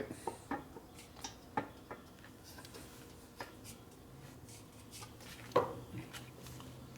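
Light scattered clicks and knocks of a motorcycle gas tank and its metal mounting bracket being handled and pressed, the loudest knock about five and a half seconds in. A faint steady low hum comes in about four seconds in.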